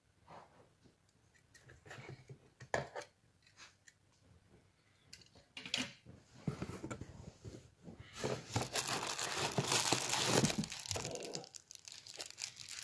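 Plastic bubble wrap crinkling and rustling as it is handled, first in a few separate crackles, then in a longer, louder stretch of dense crinkling and tearing from about eight seconds in.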